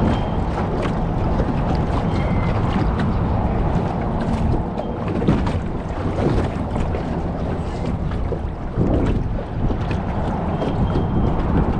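Wind buffeting the microphone on an open boat, over water sloshing against the hull, with a few light knocks scattered through.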